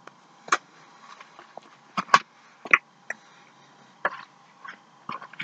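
About half a dozen short, sharp clicks and taps from handling close to the microphone, scattered irregularly over a faint steady hum.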